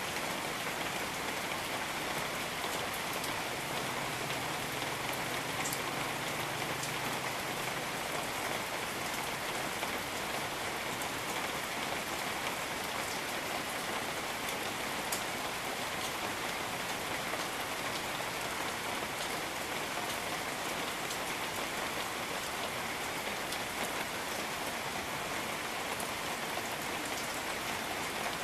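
Steady rain falling in a tropical rainforest, an even hiss of rain with scattered sharp drip ticks.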